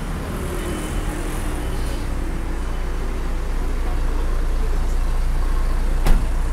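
Road traffic: a steady low engine rumble from passing vehicles that slowly grows louder, with one sharp knock about six seconds in.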